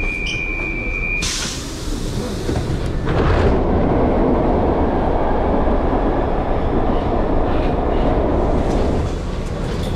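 Brussels metro train. A steady high tone stops about a second in, a loud hiss of air follows, and from about three seconds the train's running rumble takes over, easing slightly near the end.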